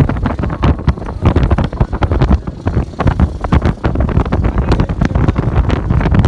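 Wind buffeting the phone's microphone held at the open window of a moving car: a loud, uneven rumble, with vehicle running noise beneath.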